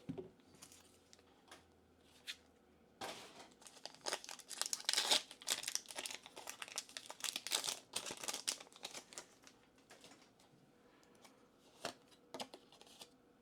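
Pokémon TCG booster pack being torn open, its foil wrapper crinkling in dense bursts for several seconds, then a few light clicks near the end.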